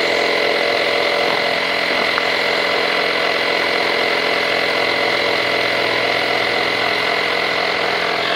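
Audew portable 12V air compressor running steadily while inflating a tire: an even motor hum with a steady high whine on top.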